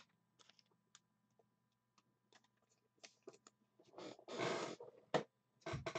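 Trading cards and a clear plastic card holder being handled and set down: scattered faint clicks, a louder rustle about four seconds in, a sharp click just after, and another rustle near the end.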